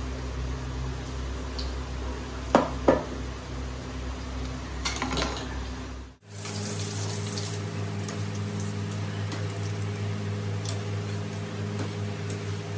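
Potato and chilli pakoras deep-frying in a kadhai of hot oil: a steady sizzle with scattered small crackles over a steady hum. There are two sharp knocks about two and a half seconds in, and the sound cuts out for an instant a little past halfway.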